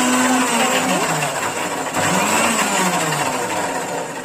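Electric kitchen mixer grinder running at speed, churning cooked ragi malt and curd in its plastic jar; a loud, steady motor whir with a wavering pitch.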